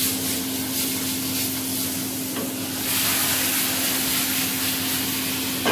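Hot sauté pan of turnip tops and tomato sizzling and hissing as a ladle of pasta-cooker water goes in, the hiss growing louder about three seconds in. Over it runs a steady low hum, and a single knock comes at the very end.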